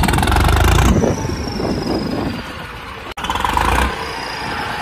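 A John Deere tractor's diesel engine revved hard twice, pouring black smoke from its exhaust stack, with a drop to a lower running level in between.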